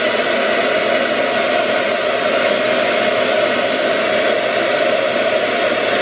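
Handheld blow dryer running steadily, a constant rush of air as hair is dried over a round brush.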